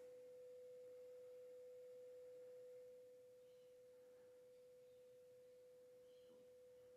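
Faint, steady mid-pitched sine-wave test tone from a signal generator, played through a NAD 3020i amplifier into small speakers, with a light hiss under it. The repairer finds the hiss excessive: it does not seem right once the volume is up. The tone drops slightly in level about three seconds in.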